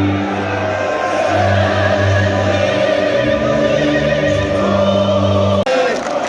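Music with choral, opera-like singing over sustained low notes, cutting off abruptly near the end; a crowd chanting comes in just after.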